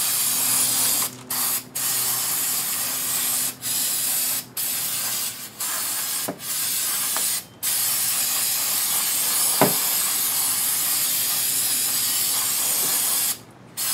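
Aerosol brake cleaner sprayed hard onto a rear drum brake assembly, to flush off the brake dust: a loud, steady hiss broken every second or so by short pauses as the nozzle is let go.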